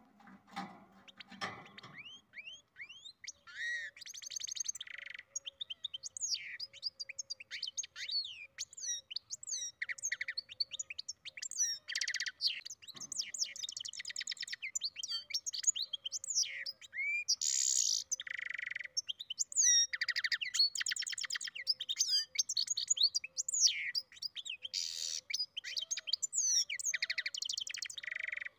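Goldfinch × canary mule singing a long, unbroken song of rapid twittering, quick sliding notes and fast buzzy trills, starting about two seconds in.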